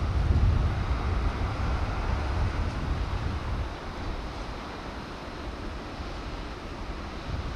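Wind buffeting the microphone outdoors: a gusty low rumble that eases about halfway through, over a steady background hiss.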